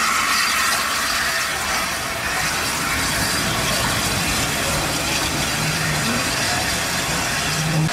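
Peppercorn A1 Pacific steam locomotive 60163 Tornado at close range: a steady hiss and rumble of steam, without distinct chuffs.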